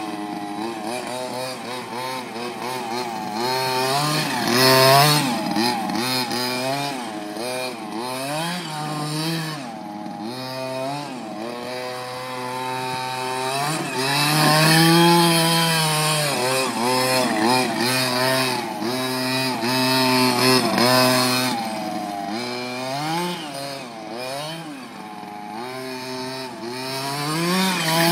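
23 cc two-stroke petrol engine of a 1:5 scale RC touring car revving up and down again and again as it is driven hard, with the loudest revs about 5, 15, 20 and 28 seconds in. The tyres, worn bald to slicks, squeal as it drifts.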